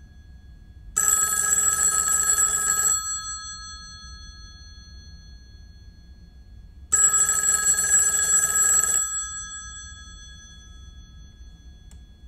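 Telephone ringing twice, each ring about two seconds long with a short tail, the rings about six seconds apart in the usual ring cadence.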